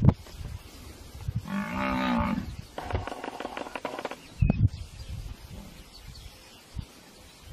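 Cape buffalo bull bellowing in distress while hyenas feed on it alive: one drawn-out bellow about a second and a half in, then a rougher, pulsing bellow straight after. A short knock about four and a half seconds in.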